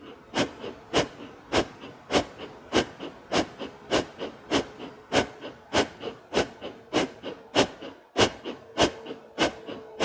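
Breath of fire: rapid, forceful rhythmic breathing through the nose, a sharp exhale as the lower belly snaps inward about every 0.6 seconds, with a softer passive inhale between.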